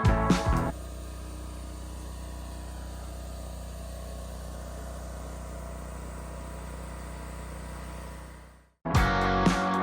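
Music cuts off, then a sawmill engine runs at a steady idle. It fades out about eight seconds in, and music starts again near the end.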